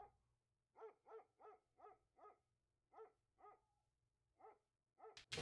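A dog barking faintly in the distance: short, rapid yaps, several a second in irregular runs. A couple of sharp clicks come right at the end.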